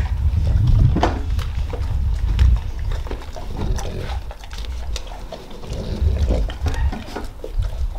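Dogs eating and licking at their feeding bowls: scattered wet chewing and slurping clicks, under a low rumble of wind on the microphone.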